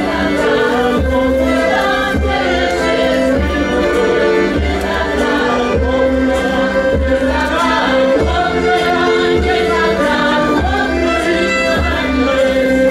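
Folk-style music: a group of voices singing with instrumental accompaniment, long held notes over a steady low beat about once a second.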